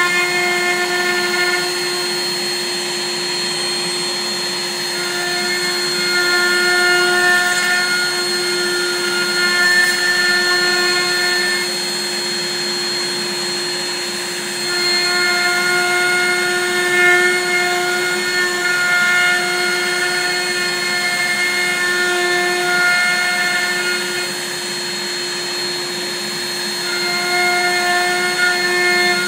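Tabletop CNC milling machine's spindle running at high speed with a steady whine while it mills black locust wood. A higher set of tones comes and goes in stretches of several seconds as the machine works through its cutting passes.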